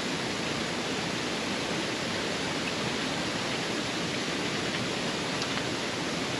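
Steady rush of a waterfall, water cascading down stepped rock ledges.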